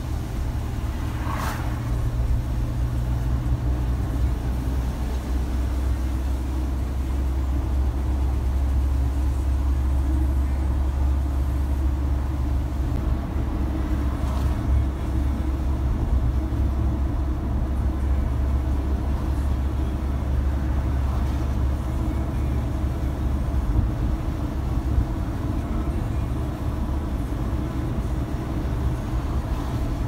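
Steady low drone of a car's engine and tyres at cruising speed, heard from inside the cabin, with a short rising squeak about a second and a half in.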